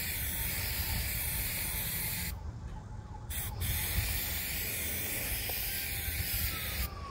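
Aerosol spray-paint can spraying in two bursts: a hiss for about two seconds, a pause of about a second, then a second hiss of about three seconds that stops near the end.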